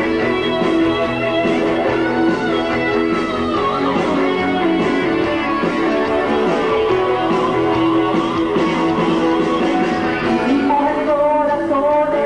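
Live pop-rock band music with electric guitar over a steady drum beat.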